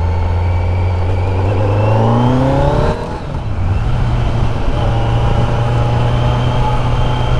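Kawasaki Z900's inline-four engine pulling as the motorcycle accelerates. Its note rises for about three seconds, drops sharply at a gear change, then runs steady.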